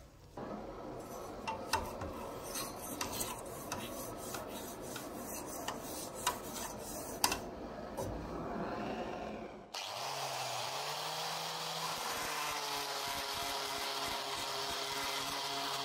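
Abrasive rubbed by hand back and forth along a steel sword blade, with scattered sharp clicks. Nearly ten seconds in it cuts to an angle grinder running steadily with a disc against the blade; its pitch swings briefly just after it starts.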